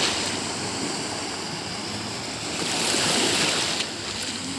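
Sea waves washing onto a beach, with one louder surge of surf near the middle that falls away about four seconds in.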